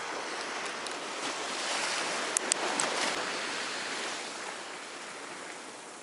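Sea surf washing onto the shore, swelling for about three seconds and then easing off, with a few sharp clicks about two and a half seconds in.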